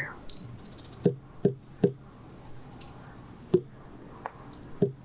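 Ceremonial knocks in an initiation rite: three quick knocks about a second in, then single knocks spaced further apart in the second half.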